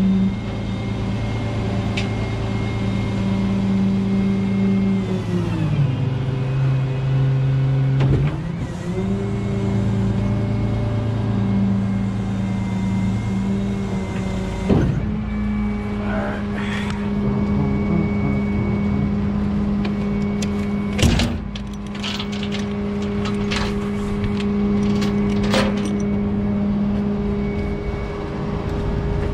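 Rollback tow truck's engine idling steadily, its pitch dipping for a couple of seconds about six seconds in and then coming back up. A few sharp clicks and knocks stand out over it, the loudest about halfway through.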